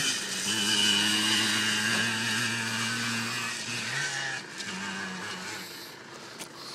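A vehicle engine running steadily close by, its pitch dropping briefly and then rising again about four seconds in.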